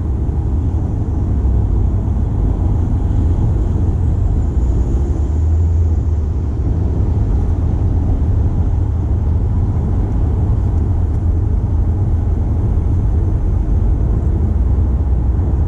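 Steady low rumble of a Toyota C-HR 2.0 XLE on the move: road and engine noise at an even level.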